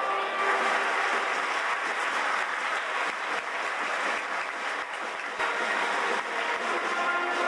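Crowd applauding, a dense even clapping.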